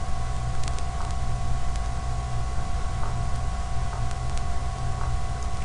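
Steady background hum and hiss with a few constant whining tones, the same noise that runs under the speech around it, with a few faint clicks scattered through.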